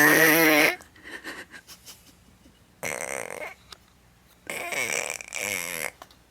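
A small child imitating a person snoring with throaty vocal snore noises: one ends just under a second in, a short one comes about three seconds in, and a longer double one near the end.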